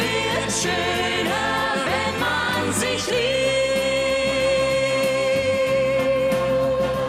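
Schlager vocal duo, a man and a woman, singing with a live orchestra. From about three seconds in they hold one long note.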